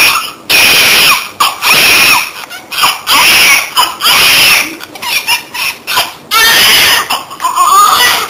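Newborn baby crying hard: a string of loud, high wailing cries, each about a second long, with short breaks between them.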